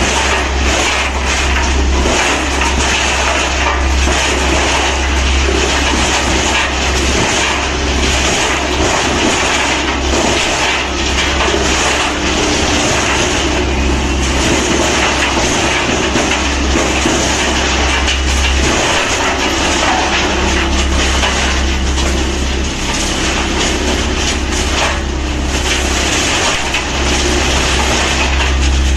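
Large wood chipper running loudly, grinding up wood with frequent short cracks over a dense steady din. Its deep drone fades out and comes back several times.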